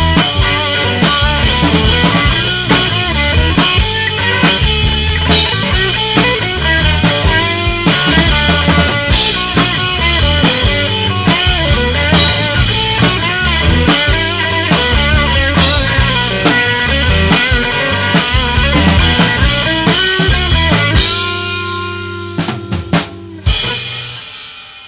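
A live rock trio of drum kit, electric guitar and bass guitar plays loud and full. About 21 seconds in, the song ends: a held chord rings out under a few last drum hits and fades away.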